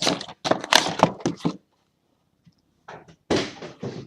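Cardboard trading-card box and packaging handled: a run of knocks, thuds and rustles, a pause of about a second and a half, then more handling near the end.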